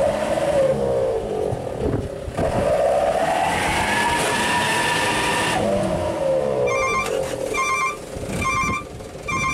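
Truck engine revving under load, straining to tow a truck stuck in mud: its pitch climbs, holds, and drops about five and a half seconds in, then comes up again. From about two-thirds of the way through, a high electronic beep repeats steadily, about every 0.7 seconds.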